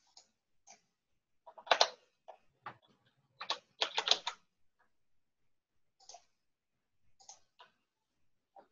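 Computer keyboard keys being typed in short runs, the densest about 2 and 4 seconds in, with a few scattered single key clicks between.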